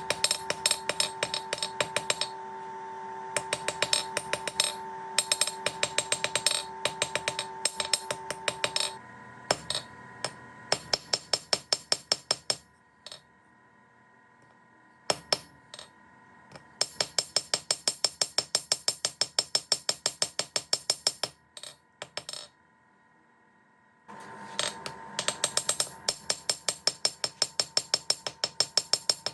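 Hand hammer striking steel on an anvil in quick runs of blows, about four a second, with the anvil ringing on a steady tone through the first stretch. The hammering stops twice for a couple of seconds of near silence.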